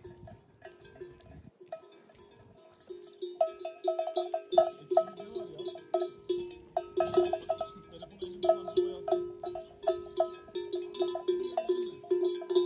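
Livestock bells clanking irregularly, several strikes a second over a steady ring. They are faint at first and grow louder about three seconds in, as a bell-wearing flock comes closer.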